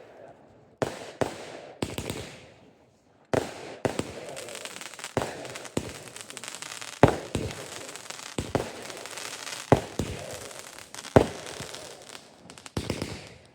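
Consumer fireworks going off: three sharp bangs, a brief lull, then a run of bangs about one to two seconds apart over continuous crackling, stopping just before the end.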